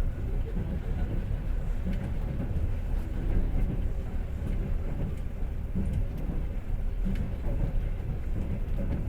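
Passenger train in motion, heard from inside the carriage: a steady low rumble of the wheels running on the rails, with faint scattered clicks.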